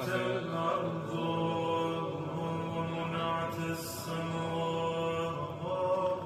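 A man chanting a Muharram elegy for Imam Hussain in long held notes.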